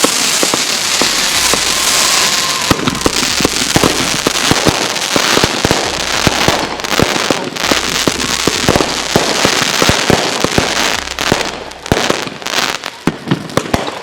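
Grand finale of consumer firework cakes and mortar shells firing together: a dense barrage of launches and bangs over continuous crackling. It thins to scattered bangs near the end.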